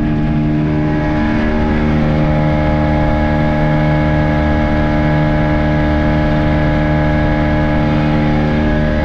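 Speedboat engine running steadily at speed, its pitch stepping up slightly about a second and a half in.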